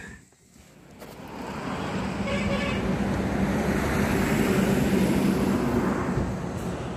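A motor vehicle running, with a steady low engine hum that builds up about a second in and then eases off near the end. A brief higher tone sounds about two and a half seconds in.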